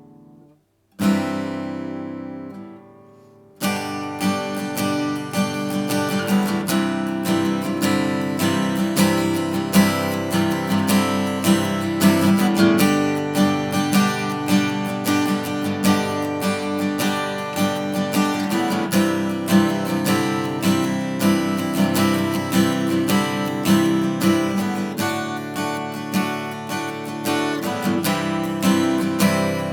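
1974 K.Yairi YW-800G acoustic guitar being played: a chord struck about a second in and left to ring and fade, then steady strumming of chords from a few seconds in.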